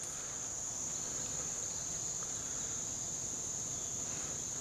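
Steady high-pitched chorus of insects.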